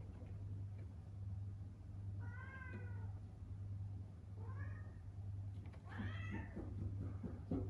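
Domestic cat meowing three times, short meows a second or two apart, over a steady low hum.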